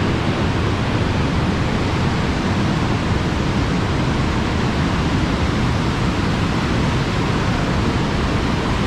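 Box Canyon Falls, an 85-foot cascade of Canyon Creek, pouring into its narrow rock canyon: a loud, steady rush of falling water.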